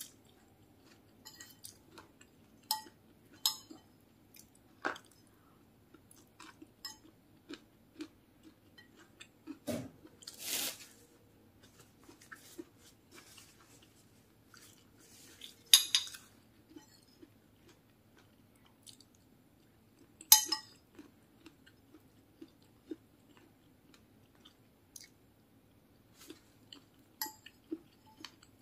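Close-miked eating: chewing, with a metal spoon clinking and scraping on a ceramic plate in scattered short clicks. A brief rustle comes about a third of the way in, and two sharper, louder clatters follow later.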